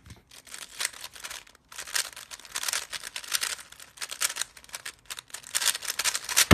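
Plastic speedcube being turned fast during a speed-solve: rapid clacking and rattling of the layers in quick flurries with brief pauses between them, opening and closing with a sharp click.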